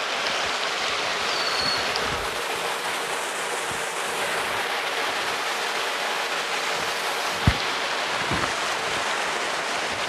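Small hot-spring waterfall splashing down into a shallow pool and stream: a steady rushing of water. A single short thump comes about three quarters of the way through.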